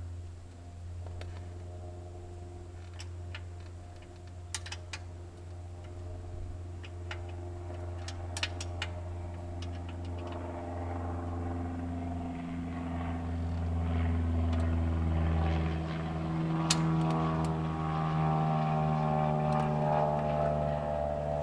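A steady engine drone whose pitch slowly rises and which grows louder in the second half, with a few sharp clicks scattered through it.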